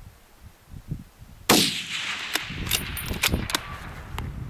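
Single shot from a Savage 10FP .308 bolt-action rifle firing 147-grain PMC full-metal-jacket ammunition, about a second and a half in, with a long rolling echo. A few sharp metallic clicks follow over the next two seconds.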